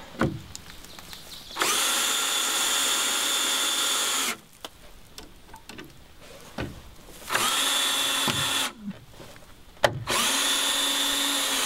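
Cordless drill driving 3-inch screws through a treated 2x4: the motor runs in three spurts, a longer one of about two and a half seconds and then two shorter ones, each a steady whine that starts and stops sharply.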